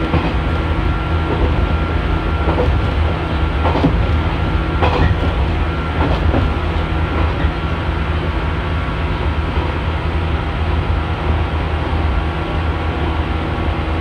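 JNR 115-series electric train running along the line, heard from inside the car: a steady low rumble and hum, with a few knocks of the wheels over rail joints in the first half.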